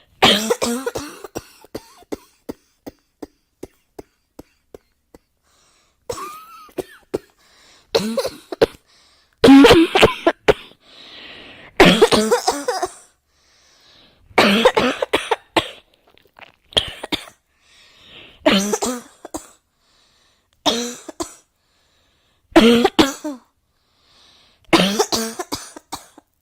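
A person coughing over and over, in short coughs or pairs of coughs about every one and a half to two seconds. In the first few seconds there is a run of small sharp clicks between the coughs.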